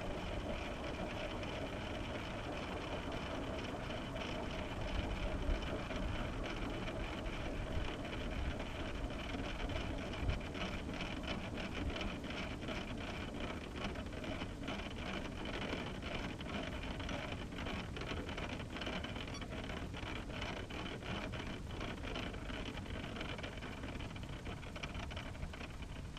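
Scale MD520 RC helicopter with an Aerosound sound module, running down: a steady turbine-like whine that fades while the main rotor slows.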